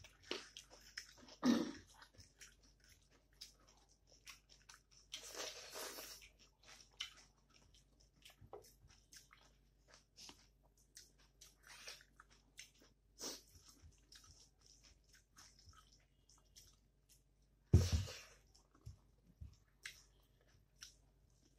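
Close-miked chewing and mouth clicks of someone eating rice and curry by hand, many small wet ticks. There is a longer breathy hiss about five seconds in, and a single low thump a few seconds before the end.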